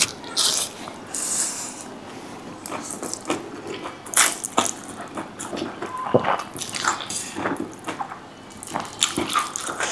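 Close-up wet eating sounds of noodles being slurped and chewed, with scattered short clicks and smacks.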